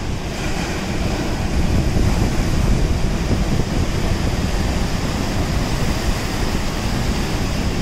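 Steady wind noise buffeting the microphone over the wash of sea waves breaking on the rocks.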